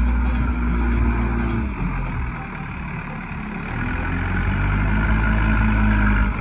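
Diesel engine of a JCB backhoe loader working under load while digging and loading mud. The engine note eases about two seconds in, then revs up again from about four seconds.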